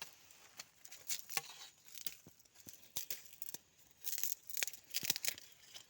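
Dry stalks and leaves of a tall plant rustling and crackling as it is tugged by hand, in irregular snaps, busiest about four seconds in.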